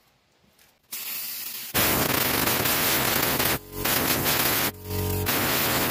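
Compressed-air blow gun blasting in three long hissing bursts, blowing brake cleaner and leaked brake fluid out of the body seams around a rear suspension mount. A fainter, shorter hiss comes about a second in.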